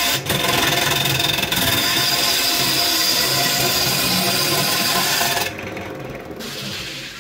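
Gouge cutting into a large log blank spinning on a wood lathe: a loud steady scraping hiss of shavings over the lathe motor's whine. About five and a half seconds in the tool comes off the wood, leaving the lathe running more quietly, and near the end it winds down.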